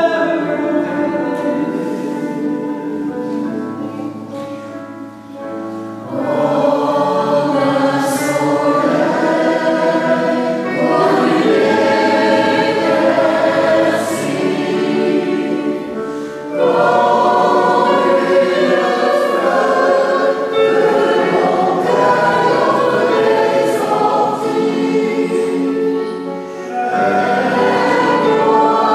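Mixed choir of men and women singing with piano accompaniment, in long sustained phrases with short breaks between them.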